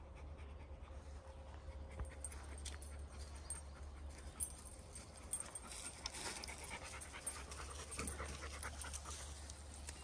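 A dog panting while walking, with footsteps and small ticks on dry leaf litter along a dirt trail.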